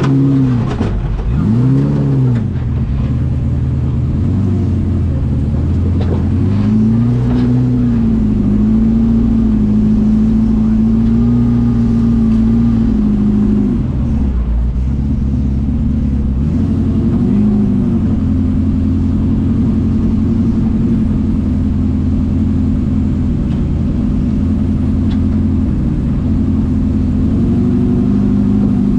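FJ40-based trial buggy's engine heard from its open cockpit. It is revved in two quick blips at first, then held at raised revs for several seconds. It drops back, blips once more, and then runs at a steady raised speed through the second half.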